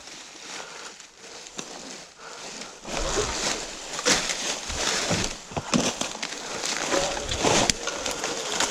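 Twigs, branches and dry leaves crackling and crunching as someone pushes through forest undergrowth, becoming louder and busier about three seconds in.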